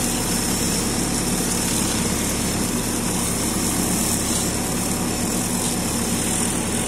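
Tractor engine running steadily under load, driving a hydraulic inter-row disc mower as its spinning head cuts grass between fruit trees.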